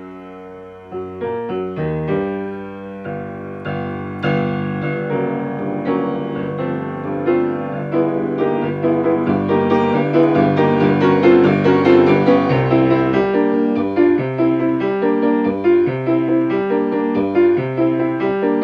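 1972 Yamaha G3 grand piano playing a lively choir accompaniment at a quick tempo, starting soft and growing louder, with evenly repeated chords in the second half. It is an old instrument whose keys, the owner says, return unevenly, so right-hand chords come out slightly staggered.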